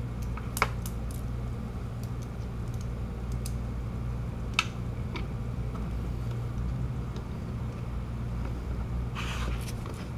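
A few light, scattered clicks and taps from hands fitting a fog light into its plastic bumper housing and securing its screw, over a steady low hum, with a short rustle near the end.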